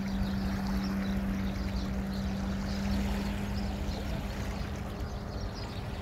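Small waves washing over a rocky shoreline, with a steady low engine hum underneath.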